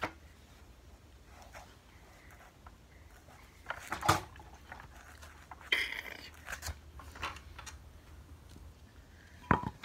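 Handling noises from a Kirby Heritage 2 upright vacuum while an attachment is forced onto its nozzle: scattered clicks, clunks and rustles, with a sharp knock near the end.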